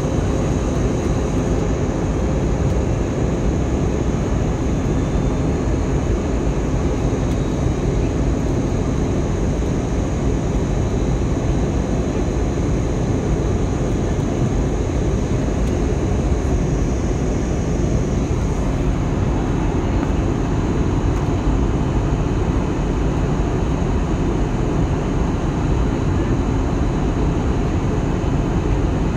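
Steady airliner cabin noise in flight: the even drone of the jet engines and rushing air, heaviest in the low end, with faint steady tones running through it.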